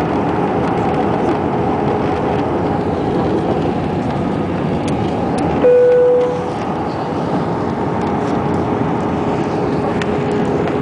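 Steady cabin noise of an Airbus A319 in flight: rushing airflow and engines with a faint steady hum. About six seconds in, a single cabin chime sounds and fades within a second.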